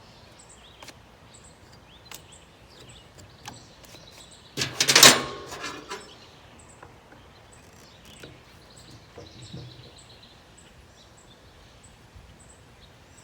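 Hands working on a chainsaw: scattered light clicks of plastic parts, with one louder scraping, rattling burst about five seconds in, as the cover over the air filter is taken off. Faint, regular high chirping goes on in the background.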